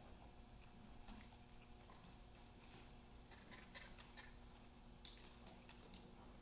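Faint, muffled hoofbeats of a horse moving over soft indoor-arena footing, over a steady low hum. A sharper click stands out about five seconds in.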